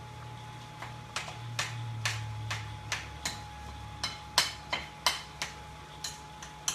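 A spoon clicking and knocking against a mixing bowl while stirring a thick, sticky cheese filling, in irregular strokes that grow louder and more frequent in the second half, over a low steady hum.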